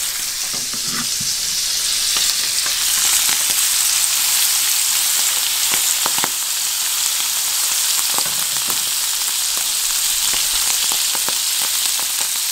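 Pheasant breast fillets sizzling steadily as they fry in hot olive oil and butter in a pan, with a few short clicks.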